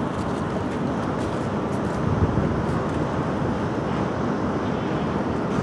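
Wind buffeting the microphone: a steady, low rumbling noise with no distinct events.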